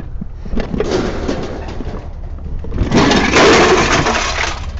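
Scrap metal clattering as pieces are handled and tossed onto a pile: scattered knocks at first, then a longer, louder crash of rattling metal about three seconds in.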